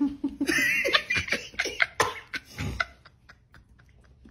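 A person laughing in a run of short bursts, dying away about three seconds in.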